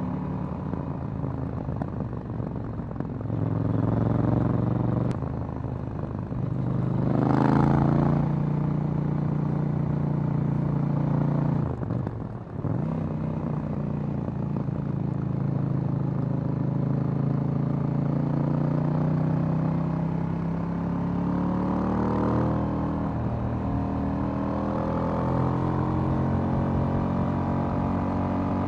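2018 KTM 790 Duke's parallel-twin engine and stock exhaust under way, its pitch rising and falling with the throttle. About seven seconds in a brief rush of noise passes, and around twelve seconds the engine note drops out briefly before picking up again and running steadily.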